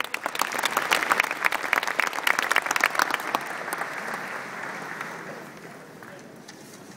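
Audience applauding, dense for the first few seconds, then thinning out and fading away over the last few seconds.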